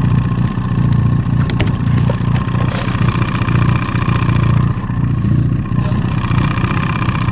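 Small fishing boat's outboard motor running steadily.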